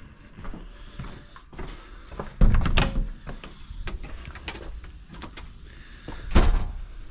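Handling noises: two loud thumps, one about two and a half seconds in and one about six seconds in, with lighter clicks and rattles between them.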